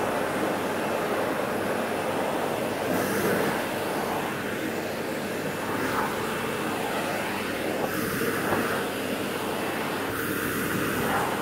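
Vacuum cleaner running steadily with its floor-brush nozzle being pushed through a cat's fur, the suction hiss shifting a few times as the nozzle moves.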